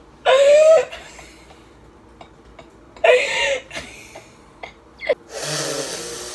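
Two women laughing hard: two loud, high-pitched bursts of laughter, one just after the start and one about three seconds in, then a longer breathy laugh near the end.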